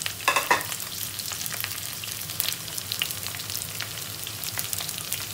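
Red onion and minced garlic sizzling in hot oil in a wok, a steady hiss dotted with quick crackles, with a brief louder burst about half a second in as the onions settle into the oil.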